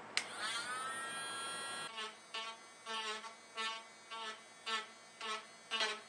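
Handheld rotary tool with a sanding drum switched on with a click, its motor whine rising in pitch and levelling off as it comes up to speed. From about two seconds in the whine swells and dips in regular pulses about twice a second, while the tool deburrs the edges of hole-saw holes in a plastic tote.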